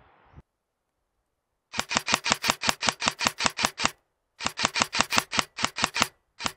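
Airsoft gun firing on full auto at about ten shots a second, in three long bursts with short breaks between them.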